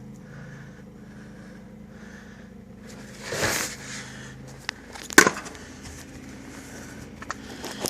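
A steady low mechanical hum with a brief rush of noise, one sharp loud knock and a few lighter clicks.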